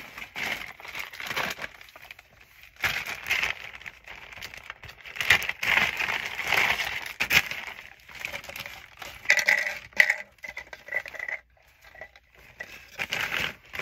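Plastic-wrapped medical supplies crinkling and rustling as they are handled and pushed into a clear plastic suction canister, with irregular light clinks and knocks of hard plastic.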